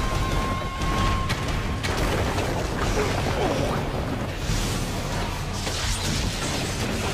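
Anime fight soundtrack: background music mixed with a steady low rumble and crashing, exploding impact effects.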